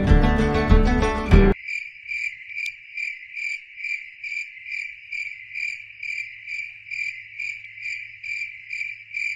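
Acoustic guitar music cuts off abruptly about a second and a half in. It gives way to a cricket chirping in a steady, even rhythm of about two and a half chirps a second, all at one high pitch.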